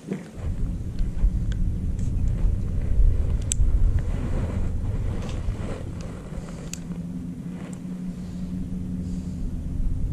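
Outboard motor running with a low hum; its tone steadies about six seconds in. A few light clicks sound over it.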